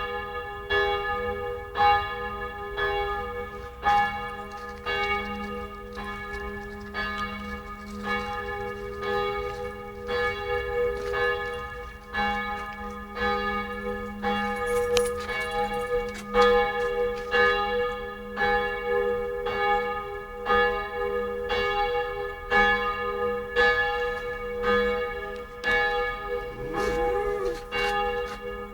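Church bells of Tempelhof Village Church ringing in a steady, even pattern, about two strokes a second, each stroke's tone hanging on under the next.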